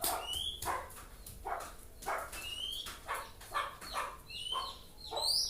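Oriental magpie-robin (kacer) calling: a run of short harsh chirps, roughly one to two a second, several with a quick rising whistled note, the highest and loudest near the end.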